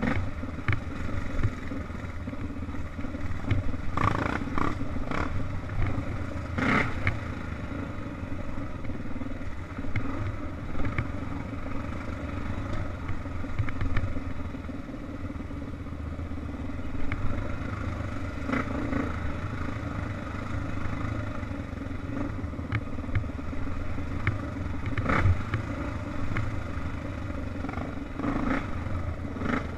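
Off-road dirt bike engine running steadily at trail pace, with scattered sharp knocks and rattles as the bike jolts over the rough dirt trail. The knocks are clustered about four to seven seconds in and again near the end.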